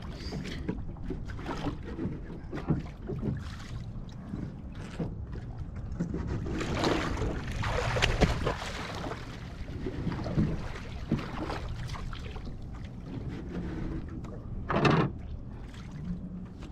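Water splashing and sloshing against the hull of an outrigger canoe as a swimmer hauls himself back aboard from the water, loudest about seven to nine seconds in. A short, sharp noise stands out near the end.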